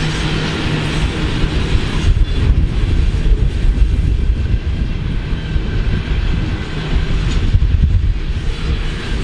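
Freight train of covered hopper cars rolling past close by: a steady rumble of steel wheels on rail, with wind buffeting the microphone.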